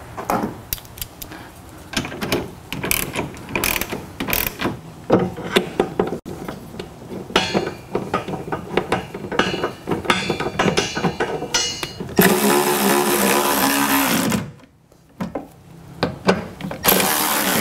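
A cordless electric ratchet runs for about two seconds, and again briefly near the end, driving a mounting bolt of a truck-bed side rack panel. Before that come many small clicks and rattles as the bolt and bracket hardware are fitted by hand.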